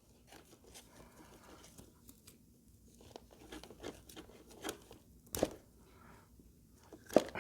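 Scattered faint clicks and small handling noises of parts being worked by hand, with a sharper click about five seconds in and another near the end.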